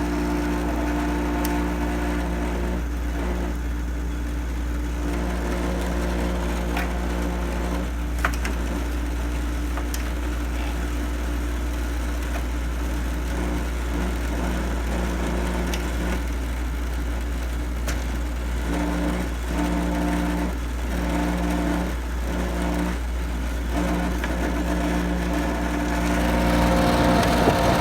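GoldStar window air conditioner running on cool with both compressor and fan going: a steady low hum under a rough, noisy drone that sounds horrible but is working. The compressor runs without stalling or humming.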